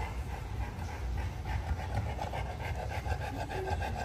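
Pregnant Boerboel dog panting fast and rhythmically, breathing heavily.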